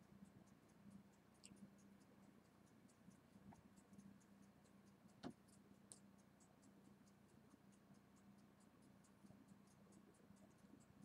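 Near silence: faint room tone with a low steady hum and rapid faint ticking, and one louder click about five seconds in.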